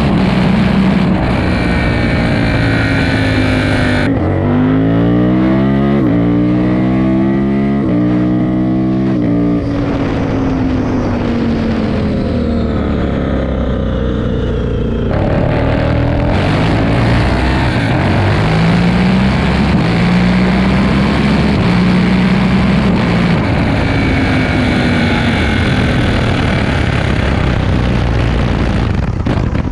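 Indian FTR 1200's V-twin engine on a ride, revving up and easing off several times, its pitch rising and falling, with sudden changes in the sound about four seconds in and again near fifteen seconds.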